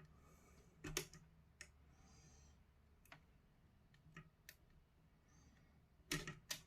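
Scattered small, sharp plastic clicks and taps of a PS5 controller's internal parts being handled, as its ribbon-cable connector tabs are worked loose. The loudest comes about a second in, with a quick cluster near the end.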